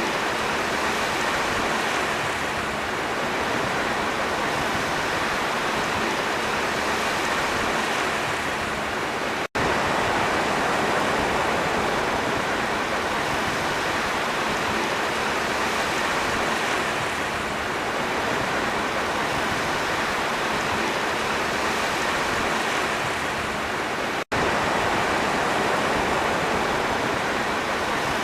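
Sea waves washing steadily, a dense continuous rush with slow, gentle swells. The sound cuts out for an instant twice, about a third of the way in and again near the end.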